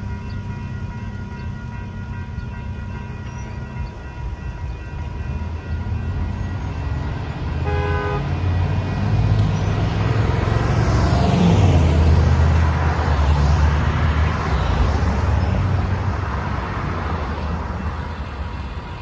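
Railroad crossing's electronic bells ringing steadily as the gate arms rise, with a short horn toot about eight seconds in. Cars and a van then drive over the crossing, their noise swelling and fading and loudest in the middle.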